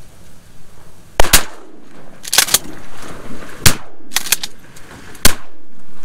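Volley of shotgun blasts from several hunters firing at passing ducks, about eight shots over five seconds, some landing almost on top of each other.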